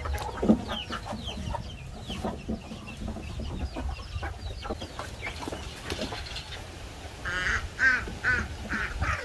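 Farmyard poultry calling: chickens clucking among many short, high, falling peeps, with a run of four louder calls in quick succession near the end.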